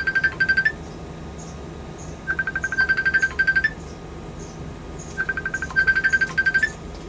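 Electronic ringtone: a rapid high trill of beeps, about a second and a half long, repeating roughly every two and a half seconds, three times.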